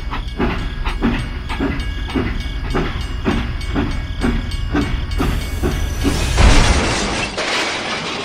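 A machine chugging in a steady rhythm, about three beats a second, over a low rumble; in the second half a loud hiss swells and then fades out.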